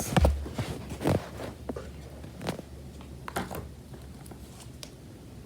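Scattered light clicks and knocks of small plastic slime containers being handled and set down, most of them in the first three and a half seconds.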